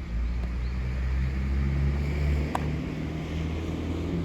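A steady low rumble throughout, with one sharp crack about two and a half seconds in, a baseball being struck or landing in a glove during fielding practice.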